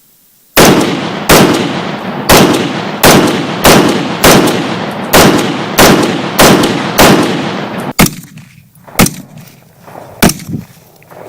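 AR-15 rifle fitted with a YHM 5M1 muzzle compensator, firing a rapid string of about a dozen shots, a little over one a second, each trailing off in echo. Then a few more spaced-out shots near the end.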